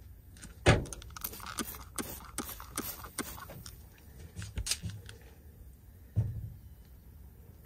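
A run of irregular sharp clicks and crackles with a few dull knocks, the loudest knock about three-quarters of a second in; the clicks thin out after about three seconds, with two more knocks later.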